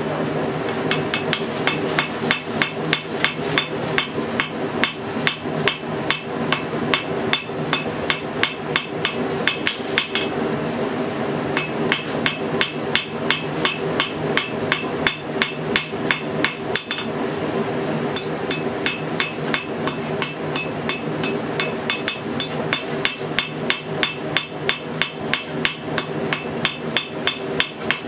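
Hand hammer striking a red-hot steel bar on an anvil in a steady rhythm of about two to three ringing blows a second. The rhythm pauses briefly twice, and a steady low hum runs underneath.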